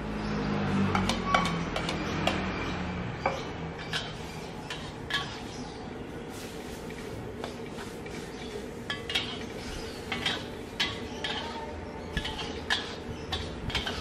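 Metal wok spatula scraping and clanking irregularly against a wok as noodles are stir-fried, over a steady sizzle. Food is tipped into the wok near the start, when the sizzle swells.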